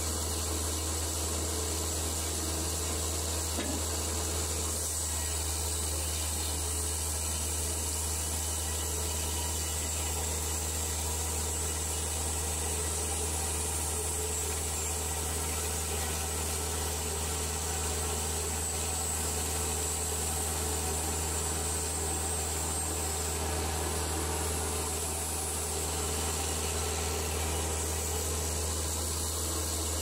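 Portable bandsaw sawmill running steadily, its band blade cutting a board off a cedar cant.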